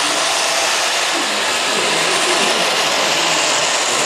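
Hydraulic pump of a scale-model Komatsu RC excavator running with a steady whir as the boom and bucket move.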